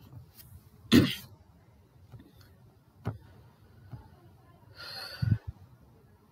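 A pause in a man's narration. There is a short breath about a second in, a faint click near three seconds, and a breathy rustle ending in a soft low thump around five seconds, over quiet room tone.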